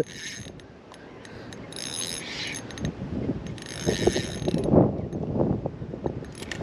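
Fishing reel being cranked in short bursts, its gears giving a whirring ratchet sound with a steady high ring. A few dull knocks and rustles come between about three and six seconds in.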